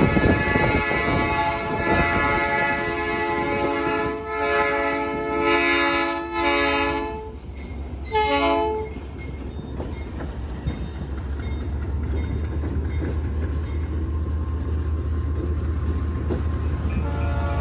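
GE U20C diesel locomotive sounding its air horn for a road level crossing: a long blast, two shorter ones, then a last short blast about eight seconds in. After that the locomotive's diesel engine rumbles low and steady as it crosses the road.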